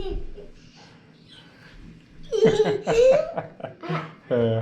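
A young child laughing in several short bursts, loudest from about two seconds in: delighted laughter at a grown-up's pretend sneeze.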